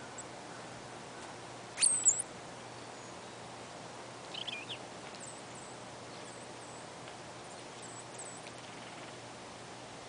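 Small songbirds calling at a winter feeder: a sharp, very high call about two seconds in, a brief twitter of looping notes around four and a half seconds, then a few faint, very high notes.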